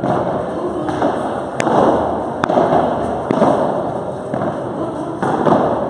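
A padel rally: the ball struck by solid padel rackets and bouncing off the court, a sharp pop roughly once a second, each echoing in the large hall.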